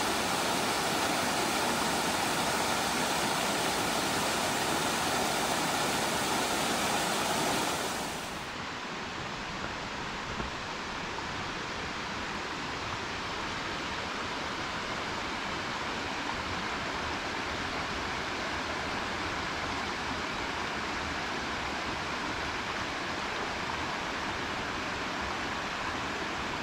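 Mountain stream cascading over rocks: a steady rush of running water. It is louder for about the first eight seconds, then settles into a quieter, even flow.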